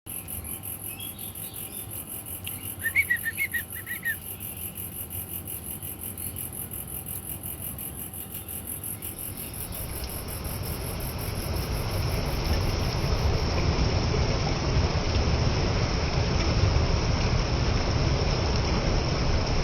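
Insects trilling in rapid, even pulses, with a bird giving a quick run of four chirps about three seconds in. From about halfway a steadier high buzz takes over and a low rumbling noise grows louder beneath it.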